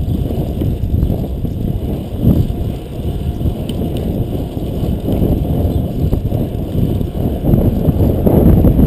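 Wind rushing over a GoPro's microphone on a fixed-gear bicycle at racing speed: a loud, steady, low rumble.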